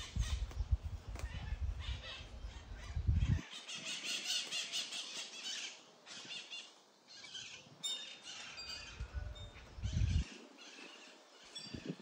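Many birds chattering and squawking at once, dense short calls overlapping throughout, with a few brief whistled notes in the second half. A low rumble on the microphone in the first three seconds and again around ten seconds in.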